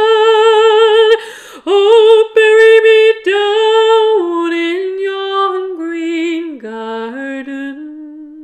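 A woman singing an Irish folk ballad a cappella, holding long notes with vibrato. The line breaks briefly for breath about a second in, and the melody steps down in pitch over the last few seconds.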